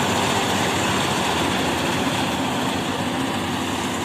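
Rice combine harvester running steadily: a constant, loud mechanical drone from the engine and threshing machinery.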